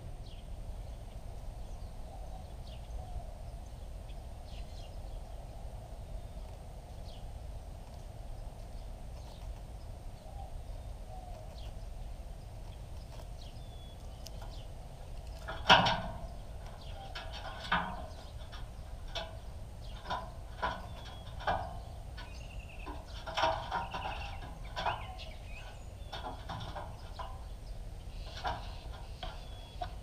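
Outdoor ambience with a steady low rumble and faint high bird chirps. About halfway in, a run of short, rasping animal sounds begins, roughly one a second, the first the loudest.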